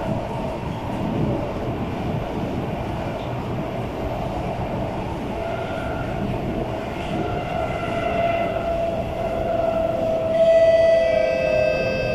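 SMRT C751B metro train heard from inside the car, braking into a station: a steady rumble of wheels on track with motor whine that builds and slides slightly down in pitch as the train slows. From about ten seconds in, a cluster of higher whining tones joins in, the loudest part.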